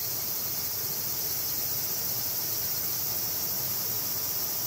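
Steady high-pitched chorus of insects such as crickets, unbroken and even in level.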